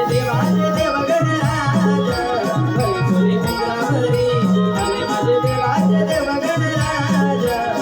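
Instrumental interlude of Konkani Jakhadi folk music: a steady, repeating drum rhythm with rattling percussion under a wavering melody line.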